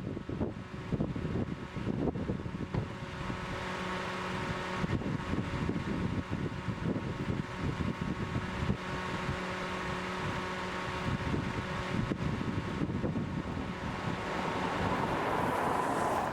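Wind buffeting the microphone in gusts over the steady hum of a vehicle running. Near the end a higher steady tone swells and then cuts off suddenly.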